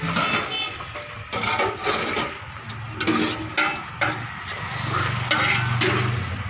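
A steel ladle and spoon clink and scrape against steel bowls and a large aluminium pot, in a run of sharp clatters while chickpeas are scooped and stirred. Road traffic hums behind.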